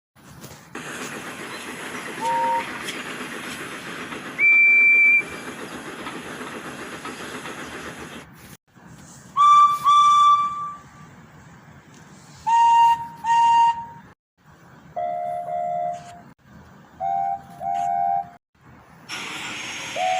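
Steam locomotive sound effects: a long hiss of escaping steam with two short whistle peeps, then a run of short steam-whistle toots, mostly in pairs, each pair at a different pitch, one of them a two-note chime.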